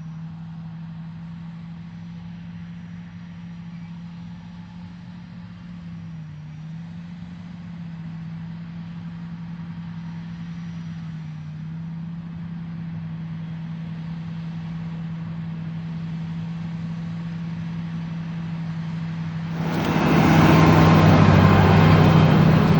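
Tractor engine running steadily under load, pulling a 5-shank inline ripper deep through the soil. About 20 seconds in, a much louder rushing noise suddenly cuts in over it.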